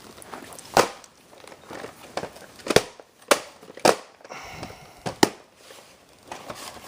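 A series of sharp clicks and knocks, about five, spaced irregularly over several seconds, with a faint hiss between them.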